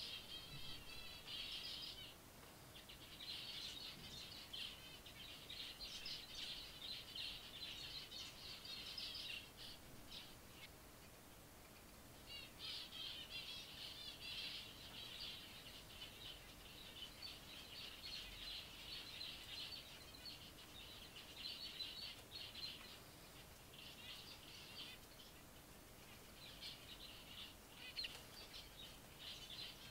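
Zebra finches calling faintly, several at once: quick high chirps in dense bursts, broken by short lulls, the longest about ten seconds in.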